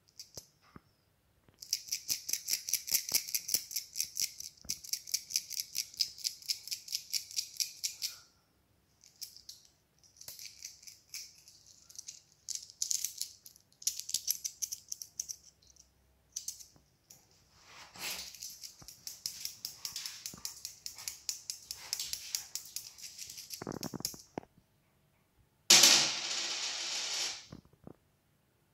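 Coins being shaken and jingled in a hand: rapid metallic clinking in runs of several seconds separated by short pauses, with one louder burst of about two seconds near the end.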